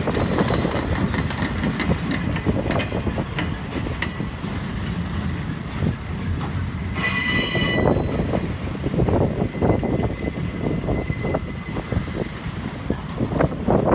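Railroad flatcars carrying track maintenance machines rolling past close by: a steady rumble of steel wheels on rail with rapid clicking. A short high wheel squeal comes about seven seconds in, with fainter squeals later.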